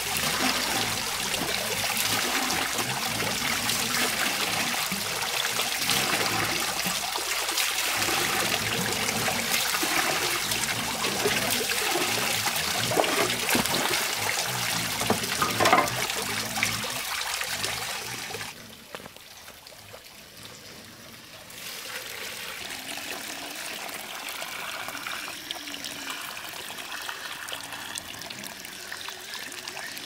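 Water running and trickling, with small clicks through it. Its level falls sharply about two-thirds through, then it goes on more quietly.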